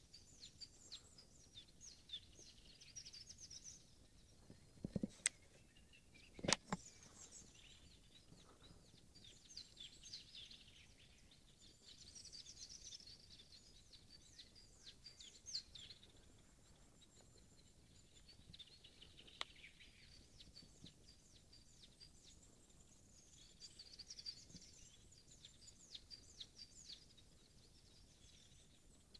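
Several small birds singing and chirping faintly in a cedar forest, in scattered phrases over quiet background noise. A few seconds in, two sharp knocks come about a second and a half apart, louder than the birdsong.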